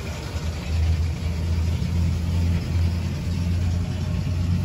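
A diesel tractor engine idling: a steady low rumble that swells and eases unevenly.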